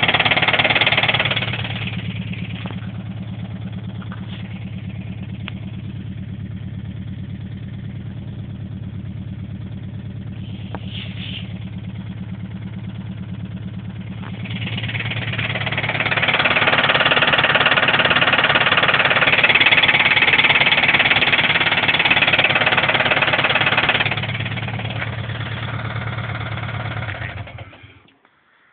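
Subaru WRX turbocharged flat-four engine running with a knock that the owner suspects is a blown big-end bearing. It drops to a lower level about two seconds in, gets louder again from about fifteen seconds to twenty-four, and cuts off near the end.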